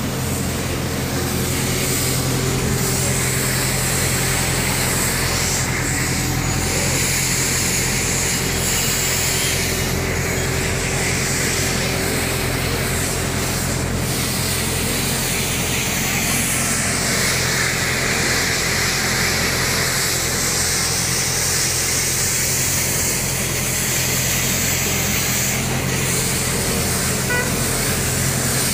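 Steady street traffic noise: a constant low rumble under an even hiss, with no distinct events standing out.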